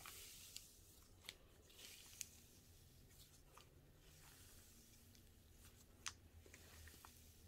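Cloud slime being stretched and pulled by hand: faint soft tearing with a few small sharp clicks.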